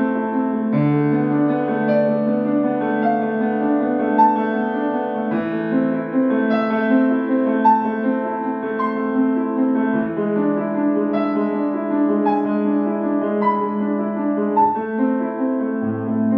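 Grand piano played solo: a melody in the middle register over held bass notes, with no pauses.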